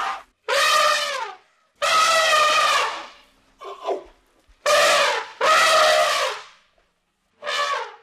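Elephant trumpeting: a series of about six loud trumpet calls, most about a second long, separated by short gaps, each falling in pitch as it ends.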